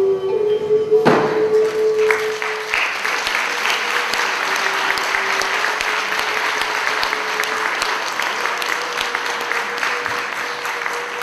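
Audience applauding, starting about two seconds in and continuing steadily, over the fading held notes of instrumental music. A single sharp strike sounds about a second in, just before the clapping starts.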